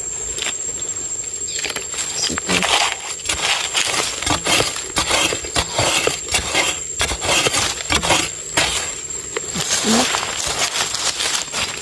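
A metal digging blade chopping and scraping into dry, hard soil, in a quick irregular run of knocks and gritty scrapes with loose earth being pried out of a small hole.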